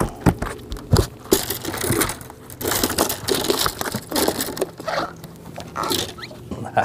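Largemouth bass flopping on a boat deck: irregular thumps, slaps and scuffing as it thrashes and is grabbed by hand.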